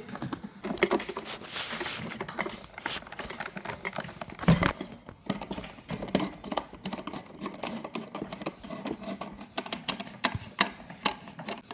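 Irregular clicks and knocks from furniture assembly, parts and hardware being handled and fitted, with one louder knock about four and a half seconds in.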